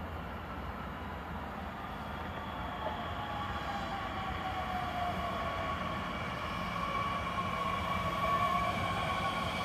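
Electric S-Bahn multiple unit, a Bombardier Talent 2, running into the station and slowing. Its traction motors give a whine that falls in pitch, and the train grows steadily louder as it nears.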